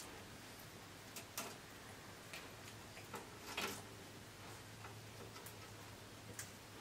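Sleeping Kai Ken dogs breathing: faint, irregular little puffs and clicks, the loudest a short huff about three and a half seconds in, over a steady low hum.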